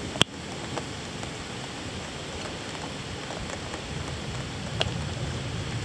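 Steady rain falling during a thunderstorm, with sharp clicks of drops striking close by: a loud one about a quarter second in and another near the end.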